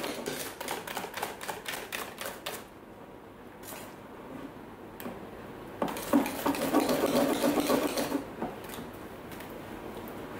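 Wire whisk beating thick set custard in a stainless steel bowl, its wires clicking rapidly against the metal. The whisking comes in two bouts with a quieter pause of a few seconds between them.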